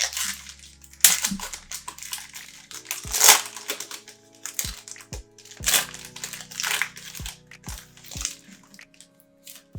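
A trading-card pack wrapper crinkling and rustling as it is handled and opened, over background music with low bass notes that comes in about three seconds in.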